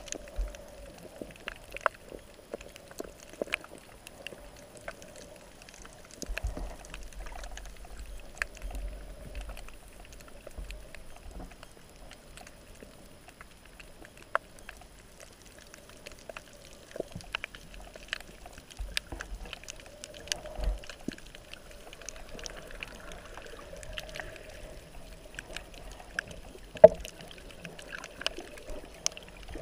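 Underwater ambience heard through a submerged camera housing: muffled water noise with many scattered sharp clicks and crackles, low rumbles now and then, and one louder knock near the end.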